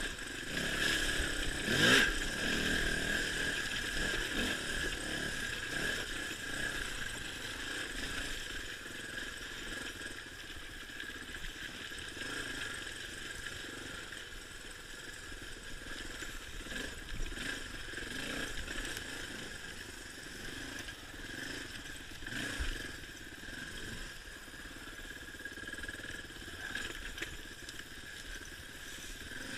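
Suzuki DR350 dirt bike's single-cylinder four-stroke engine running and revving up and down with the throttle while being ridden along a muddy trail. It gets a loud surge about two seconds in as the bike powers through a muddy puddle.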